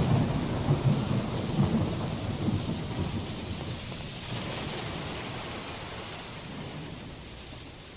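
Thunder rumbling over steady rain: a loud deep peal at the start that slowly fades over the following seconds, with rain hiss throughout.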